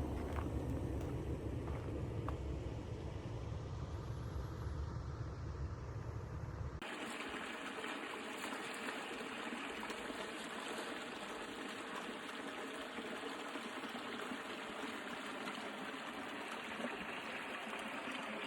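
Steady rushing noise with no distinct events, in the manner of running water or wind. A deep rumble underneath stops abruptly about seven seconds in, and only the even hiss carries on.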